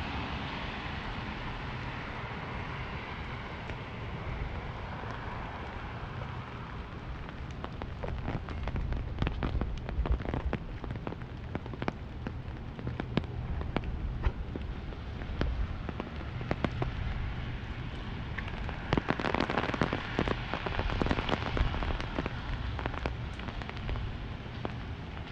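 Raindrops hitting an umbrella overhead: irregular sharp taps over a steady hiss of rain, thickest about three-quarters of the way through. A passing vehicle's tyre hiss on the wet street fades over the first few seconds.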